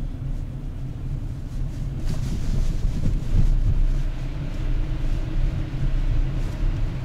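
Road noise heard from inside a moving car on a wet road: a steady low rumble from the tyres and engine, with a swell of tyre hiss about two seconds in as traffic passes.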